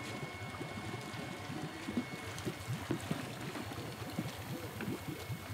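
Air from a submerged aeration hose bubbling up through pond water, a steady low gurgling churn.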